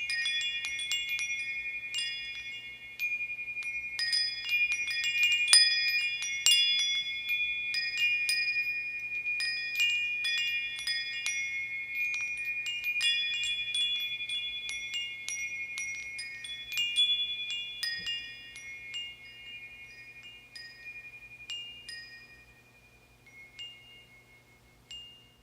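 Metal bar wind chimes of the feng shui kind ringing, the bars striking each other at irregular moments, several notes overlapping. The strikes grow sparser and fainter over the last several seconds and then stop.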